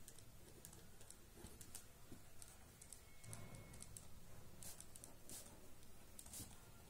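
Faint, irregular scratching of a pen writing on paper.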